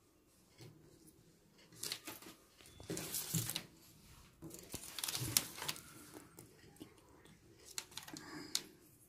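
Rustling and crinkling of a stiff, paper-backed fabric piece as it is handled and pressed flat on a table, in a few short bursts.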